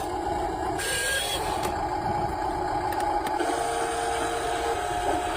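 Small electric motor and plastic gearing of a toy excavator whirring steadily, with a short higher tone about a second in and another held tone in the middle.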